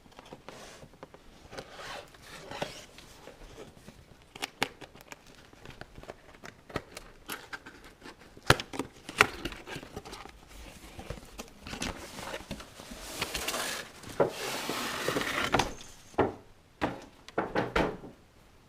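A cardboard box being opened and its contents unpacked: flaps and tape tearing and plastic packaging crinkling, with many sharp clicks and knocks. There is a longer stretch of rustling and tearing about two-thirds of the way in.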